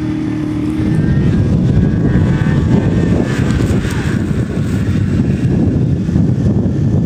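Snowmobile engine running hard at speed, growing louder about a second in as the sled comes close.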